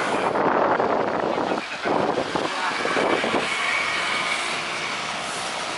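Airbus A320-200 airliner rolling out on the runway after touchdown, its jet engines giving a loud, steady rush that swells twice and then eases, with a faint high whine near the end.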